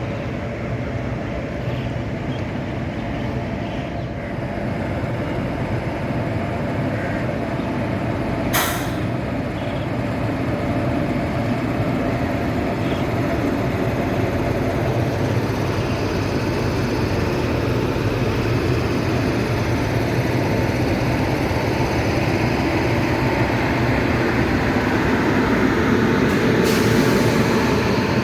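Train running, a steady rumble that grows gradually louder. A short sharp hiss of air comes about eight seconds in, and a longer hiss starts near the end, typical of air brakes.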